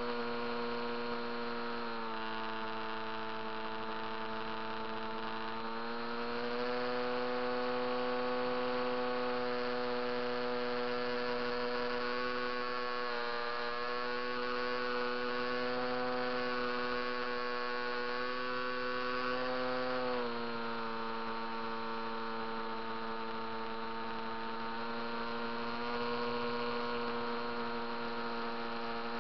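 HobbyKing Coota RC seaplane's electric motor and propeller, heard from the onboard camera, whining steadily in flight. The pitch drops about two seconds in, rises again about six seconds in and drops once more about twenty seconds in as the throttle changes.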